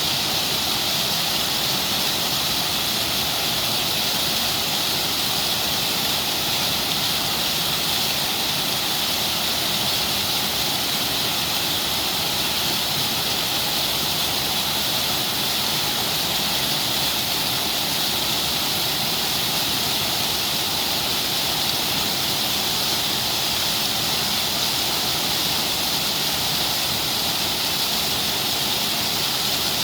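Water of a stream pouring over a small waterfall: a steady, bright hiss of rushing water that never changes.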